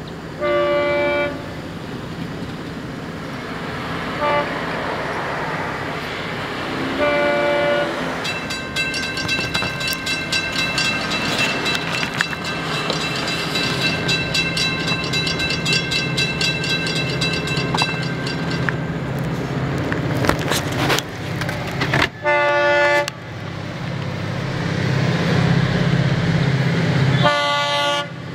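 Florida East Coast Railway diesel locomotive sounding its horn in a series of blasts: one near the start, a short one about four seconds in, another around seven seconds, then two more late on, over a steady low engine drone. In the middle a steady high ringing runs for about ten seconds.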